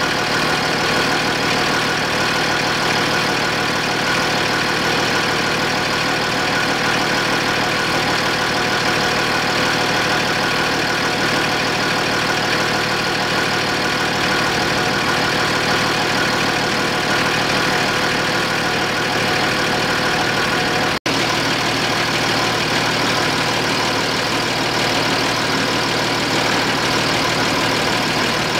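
Land Rover Discovery 3's 2.7-litre V6 turbodiesel idling steadily, heard from beneath the car. It runs so the ZF six-speed automatic's fluid can be topped up to level at the side fill plug. The sound cuts out for an instant about three quarters of the way through.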